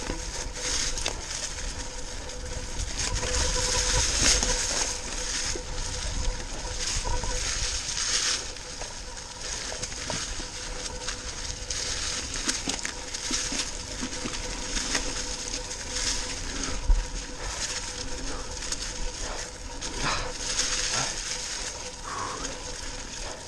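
Tyres of a 2018 Giant Stance 2 mountain bike rolling through deep dry fallen leaves: a continuous crunching and crackling, with small knocks and rattles from the bike over the bumpy trail and one louder knock about seventeen seconds in.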